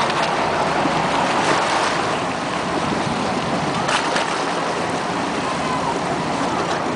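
Steady rush of water and wind noise around a small boat, with a few faint brief splashes.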